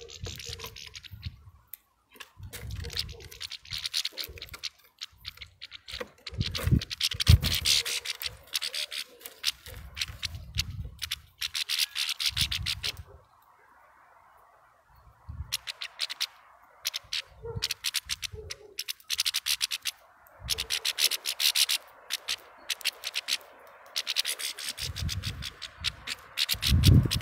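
Hand saw cutting wood in a run of rasping strokes, roughly one every two seconds, pausing for a couple of seconds midway before starting again.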